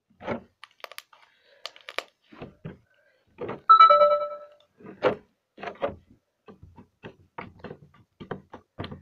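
Butter slime being stretched, squeezed and kneaded by hand, giving a run of soft clicks and pops. A little over three and a half seconds in, a brief ringing tone with several pitches sounds once and fades; it is the loudest thing heard.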